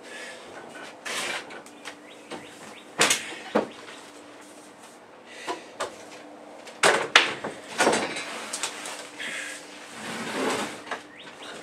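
Wooden knocks, bumps and scrapes of 2x4 wall framing being shifted and fitted into place by hand on a plywood loft floor. There are two sharp knocks about three seconds in and a louder cluster of knocks around seven seconds in.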